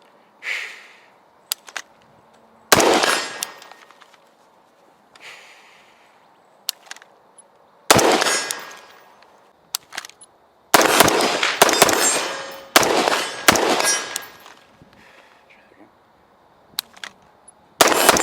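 AR-15 rifle with gas-bleed ports in its upper receiver firing: two single shots several seconds apart, then a quicker string of about five shots, and one more near the end. Faint sharp clicks fall between the shots.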